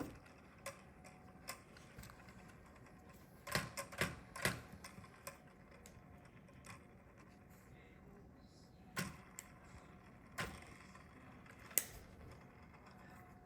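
Plastic Lego pieces clicking and tapping as they are handled and pressed together: scattered sharp clicks, with a quick cluster about four seconds in and a few more later.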